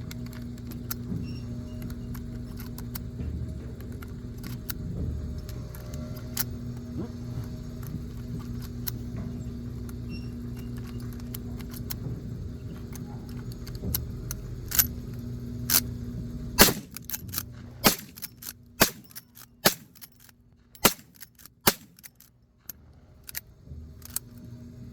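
A steady low hum, then a series of sharp cracks in the last part: a few spaced about a second apart, then about a dozen in quicker succession, after which the hum drops away.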